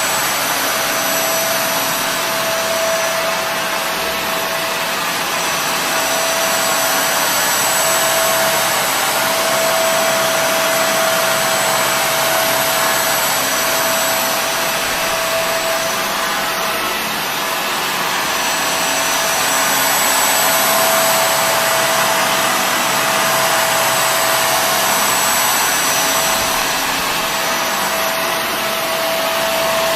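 Kenmore Intuition bagless upright vacuum cleaner running steadily, with a high whine over its rushing airflow. The whine fades and comes back and the loudness swells and eases slowly every several seconds.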